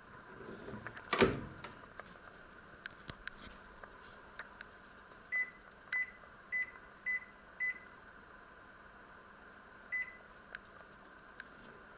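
A Panasonic microwave oven's door shuts with a sharp knock about a second in. Its control-panel buttons are then pressed, each press answered by a short high beep: five beeps about half a second apart as the power level is stepped up, and one more near the end.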